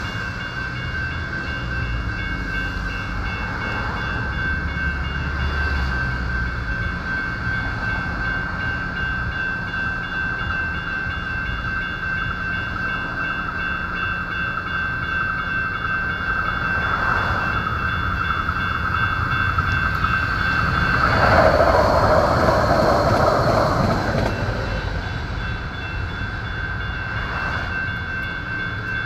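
Electronic railroad crossing bell ringing steadily as a sustained high tone while the signals are activated. A louder rush of noise swells and fades about three quarters of the way through.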